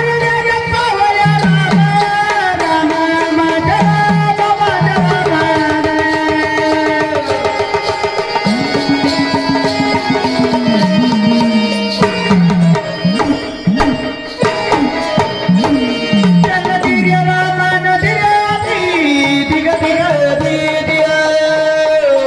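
Indian devotional folk music from a gondhal performance: a melody line over hand drums, with the drumming growing busier about halfway through.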